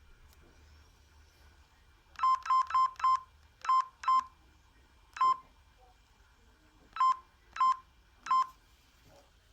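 Sagem my150X mobile phone's keypad beeps as its buttons are pressed: about ten short beeps all at the same pitch, a quick run of four about two seconds in, then single beeps at uneven gaps.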